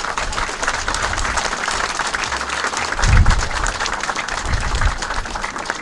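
An audience applauding, many hands clapping in a steady patter, with two brief low thumps about three and four and a half seconds in.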